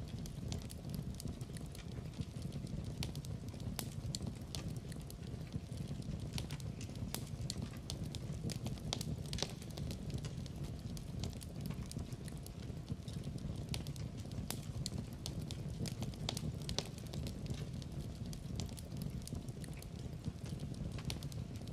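Wood fire in a fireplace crackling, with frequent irregular sharp snaps over a steady low rumble of the flames.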